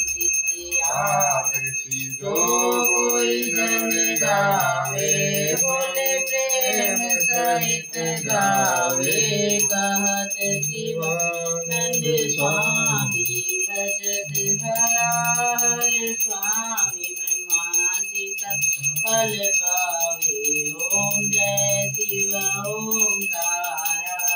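A small hand bell rung without a break, giving a steady high ring, under a woman's voice singing a devotional hymn in long, drawn-out phrases, typical of a puja aarti.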